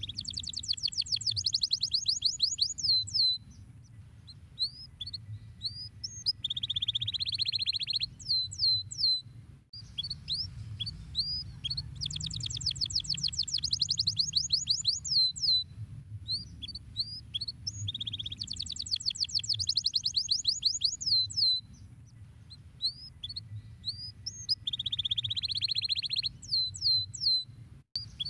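Canary singing: fast trills of sweeping notes, single chirps, and a lower, buzzy rolling phrase, with the same song phrases coming round about every nine seconds. A steady low hum runs underneath.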